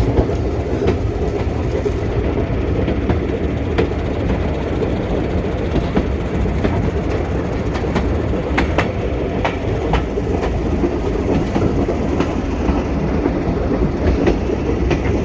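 Steady rumble of a heritage railway carriage running along the line, heard from inside, with occasional sharp clicks of the wheels over rail joints.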